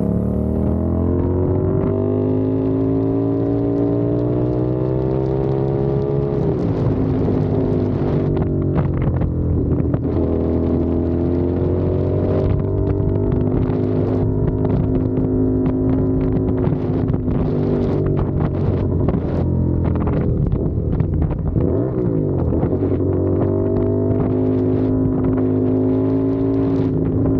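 CFMOTO 450SR parallel-twin engine under way: revs climb for about six seconds, drop sharply at a gear change, hold level, dip briefly around twenty-one seconds and rise again near the end. Wind buffets the microphone throughout.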